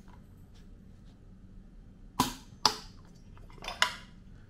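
Click-type torque wrench snapping twice, about half a second apart, as the chainsaw's flywheel nut reaches its 29 N·m setting. A couple of softer tool clicks follow near the end.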